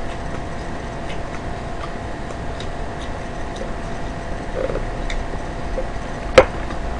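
Steady background hum with faint, evenly spaced ticks, then a single sharp knock about six seconds in as a paper drink cup is set down on the table.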